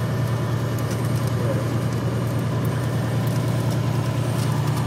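Cessna 210's piston engine and propeller running steadily at low power while the aircraft taxis, heard from inside the cockpit as an even, low drone.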